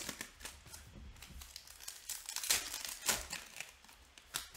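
Foil trading-card pack crinkling and tearing as it is ripped open by hand, in irregular crackles, loudest about two and a half to three seconds in.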